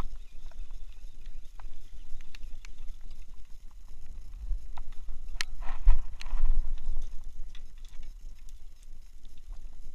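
Wind rumbling on the microphone, with scattered light clicks and taps from the rod and reel. About six seconds in, a brief flurry of slapping and rustling as the freshly caught mackerel are swung up and land flapping on the wharf's pavement.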